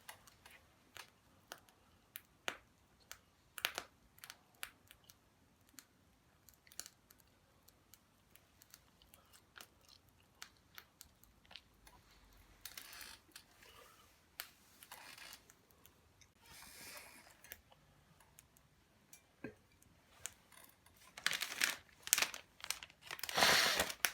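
Someone chewing and crunching on fried potatoes, with small scattered clicks, then packaging crinkling loudly near the end.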